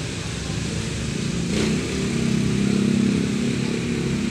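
A small engine, of the motorcycle kind, runs nearby and grows louder for a couple of seconds in the middle, with a sharp knock about a second and a half in.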